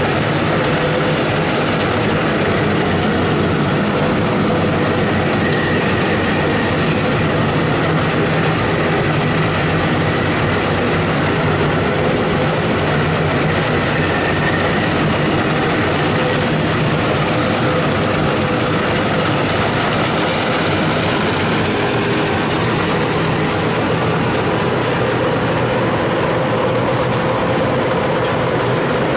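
Rice combine harvester running steadily: a loud, even engine drone with a few steady tones over the machinery's noise.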